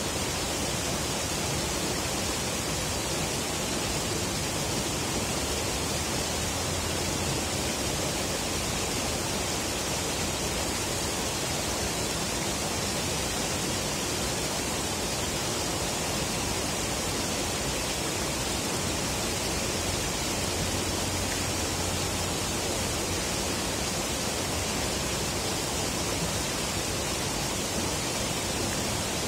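River water rushing steadily, an even noise that stays the same throughout.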